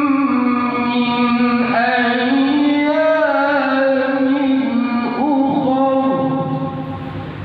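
A male qari reciting the Quran in long held, ornamented melodic phrases, amplified through a microphone and loudspeaker; the phrase ends about six seconds in.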